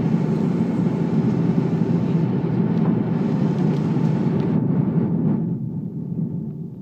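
Steady engine and airflow noise of an Airbus airliner on approach, heard from inside the cabin, heaviest low down with a hiss above. About five seconds in it drops in level and turns duller as the hiss fades away.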